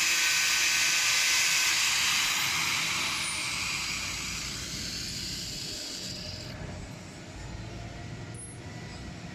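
A power tool running with a high hiss that gradually dies away over about six seconds, leaving a low hum, as when the tool is switched off and winds down.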